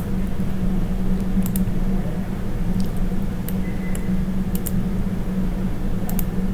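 Computer mouse and keyboard clicks, scattered and several in quick pairs, over a steady low electrical hum.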